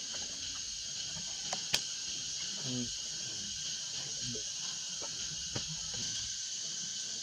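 Steady high-pitched drone of a chorus of insects, with a few soft clicks and rustles in dry leaf litter and one sharp click a little under two seconds in.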